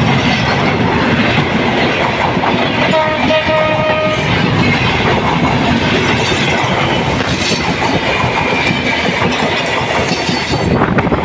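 Bangladesh Railway intercity passenger coaches rolling past close by, their wheels clattering and rumbling on the rails. A short horn note sounds about three seconds in.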